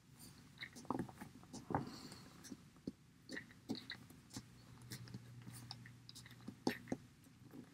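Faint handling noises: scattered soft clicks and rubbing as fingers work a small, stretchy doll-sized glove onto a plastic action figure's hand.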